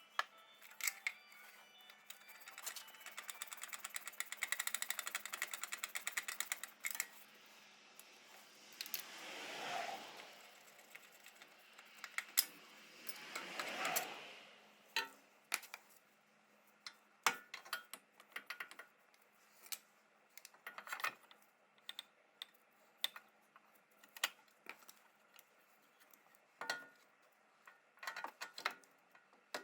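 Hand tools at work on metal car suspension parts: a fast, even run of clicks, two rising scraping swells, then scattered metallic clinks and taps.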